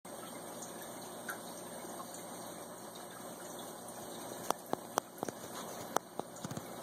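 Aquarium water running and bubbling steadily, with a cluster of sharp clicks in the second half.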